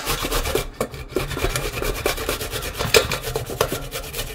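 Raw cauliflower being grated by hand on a flat stainless steel grater held in a metal bowl: quick repeated grating strokes, several a second, with a brief pause about a second in.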